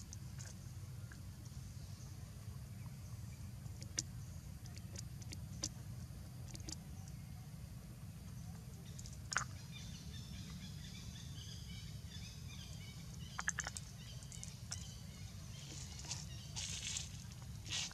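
Outdoor ambience: a steady low rumble with scattered sharp clicks and taps, and faint bird chirping in the second half.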